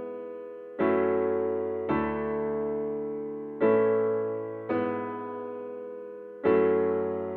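Piano playing slow, gentle chords in a worship song: a new chord every one to two seconds, each left to ring and fade before the next.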